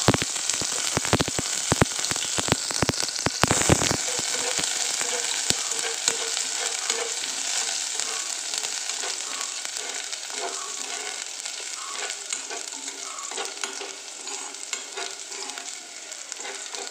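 Sliced shallots sizzling in hot coconut oil in a pan, stirred with a spatula. A run of sharp clicks and pops comes in the first few seconds, and the sizzle then grows gradually quieter.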